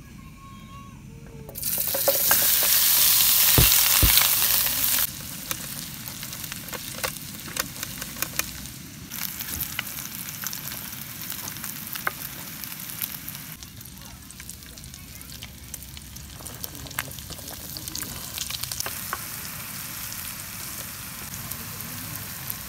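Lamb pieces frying in hot butter in an aluminium mess tin: a loud burst of sizzling about two seconds in as the meat hits the fat, then a steadier sizzle. Through it, the plastic spatula clicks and scrapes against the tin as the meat is stirred.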